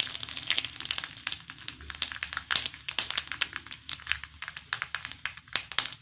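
Ghee and oil sizzling in an iron kadhai, with cumin seeds crackling and popping in the hot fat: the first stage of a tempering (tadka).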